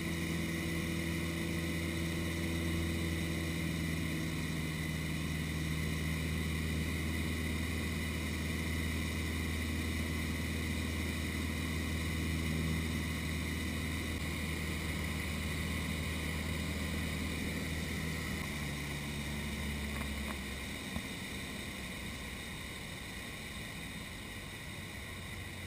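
Cessna 152's four-cylinder Lycoming engine and propeller droning steadily in cruise, heard inside the cabin with airflow hiss. About three-quarters of the way through, the low engine tones drop away with a small click, leaving a more even hiss.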